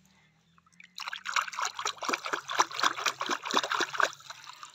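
Water splashing and trickling in a plastic tub as a hand swishes a small plastic toy animal through it, a rapid irregular patter of little splashes starting about a second in.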